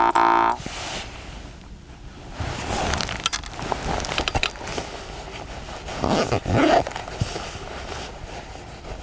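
A jaw harp's twanging drone stops about half a second in. It is followed by irregular rustling and small clicks, with louder patches near the middle.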